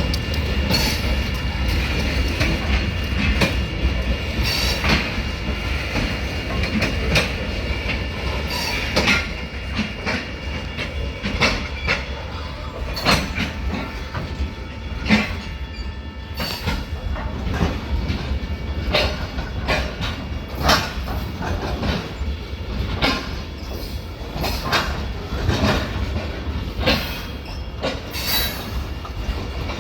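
Ohio Central Railroad freight train (the trash train) rolling past, its cars' wheels clacking over rail joints in irregular knocks over a steady low rumble.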